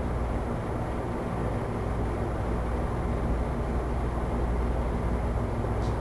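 Steady low rumble and hiss of background noise with a faint low hum.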